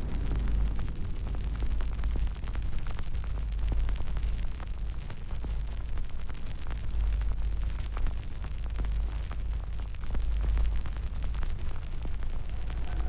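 Fire burning: a steady low rumble with frequent sharp crackles and pops.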